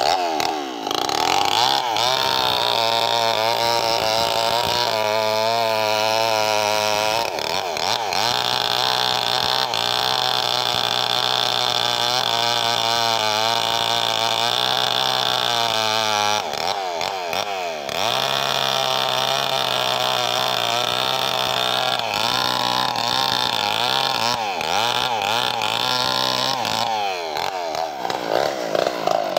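Two-stroke chainsaw cutting through a felled albasia log, the engine held at steady high revs while the chain is in the wood. The engine speed wavers, dipping and picking up again near the start, about halfway through and near the end, as the saw is eased back and throttled up between cuts.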